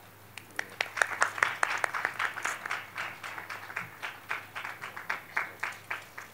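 Audience clapping in applause. The claps start about half a second in, come thick for a couple of seconds, then thin out to slower, more evenly spaced claps.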